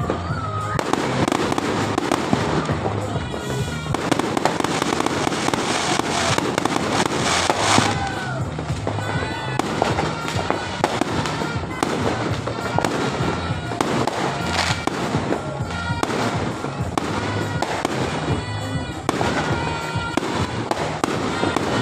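Fireworks display: a steady stream of bangs and crackling from bursting shells, with music playing underneath.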